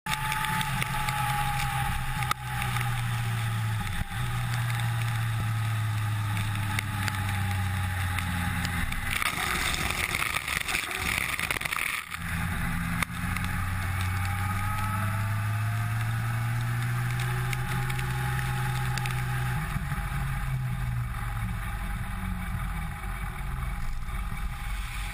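Heavy rain falling steadily, with vehicle engines humming low underneath; the rush of water swells louder for a few seconds around ten seconds in, and the engine hum gives way to a low rumble near the end.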